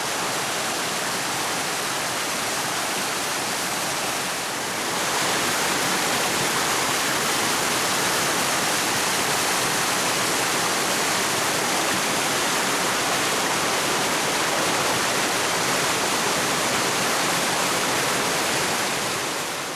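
Water pouring over a wide waterfall: a steady rush that grows slightly louder about five seconds in.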